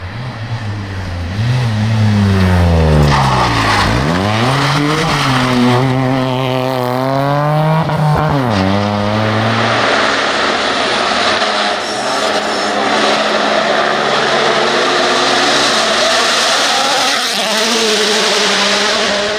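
Rally cars at full throttle. A Peugeot 107 rally car's small engine revs up and drops back several times through gear changes as it passes. After a cut, a second rally car goes by with a harsher, noisier sound of engine and tyres.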